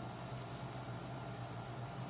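Steady hiss of room noise with a constant low hum, and a faint click about half a second in.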